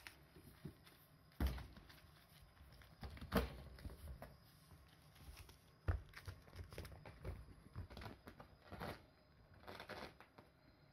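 Kittens play-fighting: soft thumps as they pounce and land, with scuffling and claws scrabbling on the fabric of a cushioned floor chair. The loudest thumps come about one and a half, three and a half and six seconds in.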